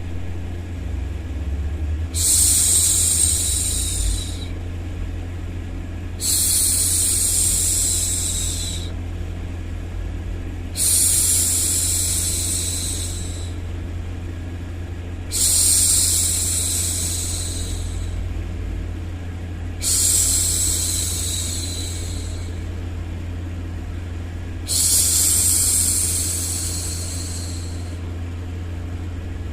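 A woman's voice making long 'shhh' hushing sounds, six times at about four-and-a-half-second intervals, each fading off, over a steady low white-noise bed.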